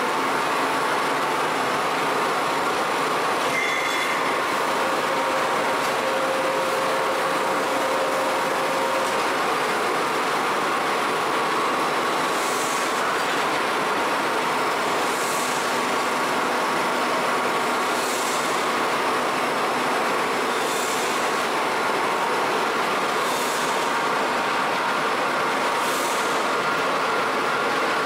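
Metal tube twisting machine running steadily, a continuous mechanical rumble and clatter as it turns a long metal tube into a spiral. From about halfway through, a short high hiss comes back about every two and a half seconds.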